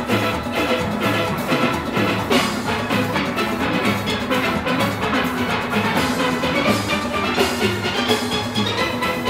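A full steel orchestra playing a calypso arrangement: massed steel pans of many voices with drums and percussion keeping a steady beat.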